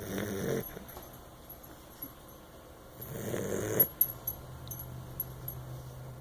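A dog snoring: two snores about three seconds apart, the first right at the start and the second about three seconds in, with a few faint light clicks after the second.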